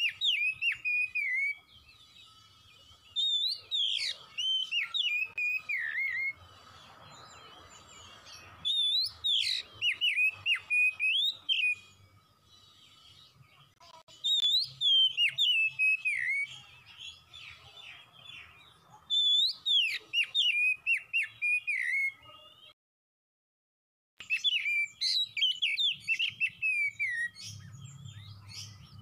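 Oriental magpie-robin singing in bursts of rich, varied whistled phrases with rapid up-and-down glides. The phrases last two to three seconds each, with short pauses between them. The sound cuts out completely for about a second around two-thirds of the way through.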